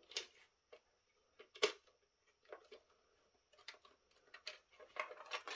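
Scattered light clicks and taps of a fish finder's hard plastic housing and small parts being handled in a teardown. There are two sharper clicks in the first two seconds and a quick run of small clicks near the end.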